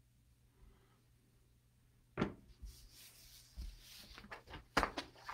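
Quiet room tone, then from about two seconds in a few sharp knocks with rustling between them: handling noise close to the microphone.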